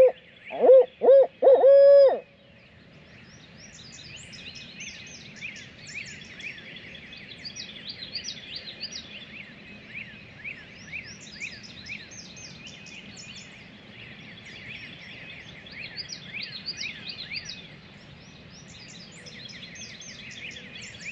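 Barred owl hooting a loud, close series in the 'who-cooks-for-you, who-cooks-for-you-all' rhythm, ending on a drawn-out note about two seconds in. After it, a dawn chorus of many songbirds chirping and trilling continues more faintly over a quiet swamp background.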